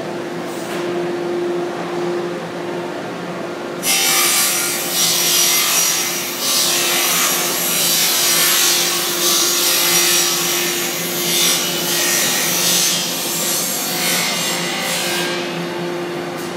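Aluminium extrusion puller line running, with a steady machine hum. About four seconds in, a loud, high, harsh hiss of metal starts suddenly and goes on for about ten seconds before fading.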